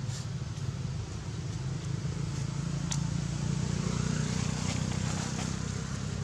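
A steady low engine hum, a little louder in the middle, with a few faint clicks over it.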